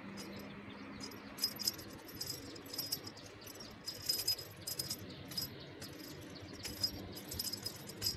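Small bell on a dangling string cat toy jingling in short, irregular bursts as a kitten bats and bites it.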